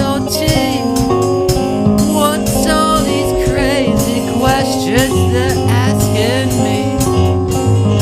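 A rock band playing the intro of a song: bass, keyboard and drums, with a wavering lead line over them.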